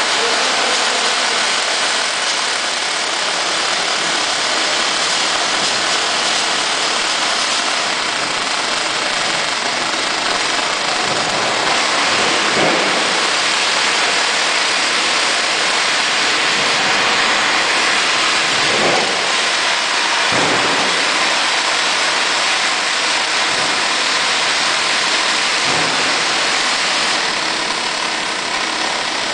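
Cebora plasma cutter's arc hissing steadily as it cuts sheet metal.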